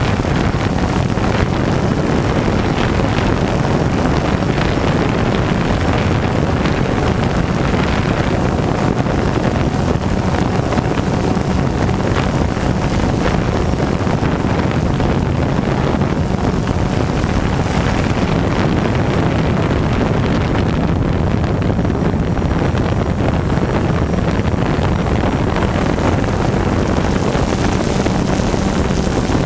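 Quadcopter drone's motors and propellers running steadily, picked up close by its own onboard camera, with wind buffeting the microphone.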